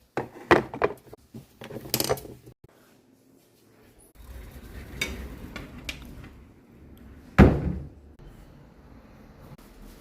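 Knocks and bumps of a wardrobe door and things being put away in it, several short clatters with the loudest single bump about seven and a half seconds in.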